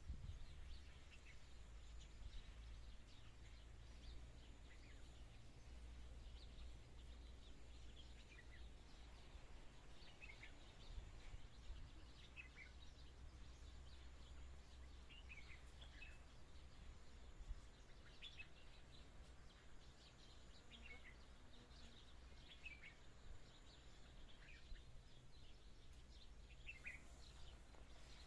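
Faint, scattered bird chirps, short and high, coming every second or two over a low, steady background rumble.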